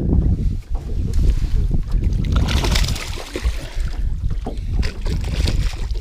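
Wind buffeting a body-worn action camera's microphone, a loud uneven rumble with knocks of clothing rubbing against it. A brief hissing rush comes about two and a half seconds in.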